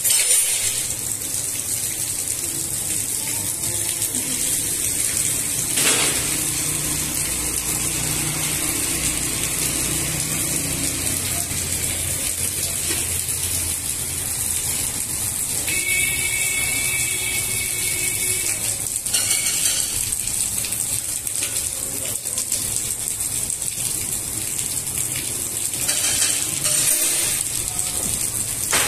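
Steady rain falling, an even hiss of drops with no letting up. About sixteen seconds in, a short high tonal sound lasts for around two seconds.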